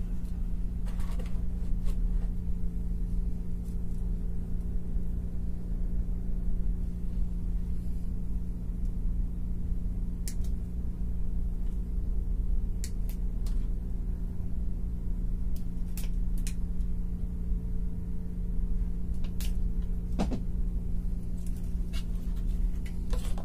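A steady low hum runs throughout, with a handful of small, sharp clicks scattered through it, the loudest about twenty seconds in.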